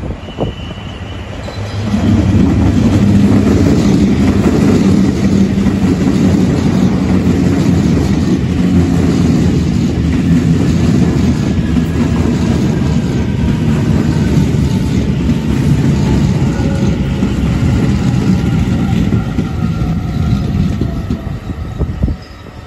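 Taiwan Railway EMU900 electric commuter train running into the station and past close by, with a loud steady rumble of wheels on rail. Several faint whines fall in pitch as it slows to stop. The sound drops away suddenly near the end.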